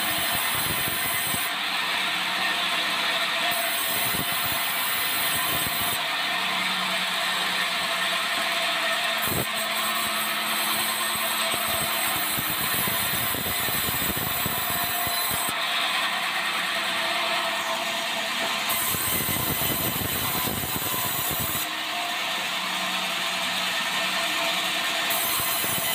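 Sawmill band saw running and resawing meranti boards fed along its roller table: a steady machine noise, with a high hiss that comes and goes every few seconds.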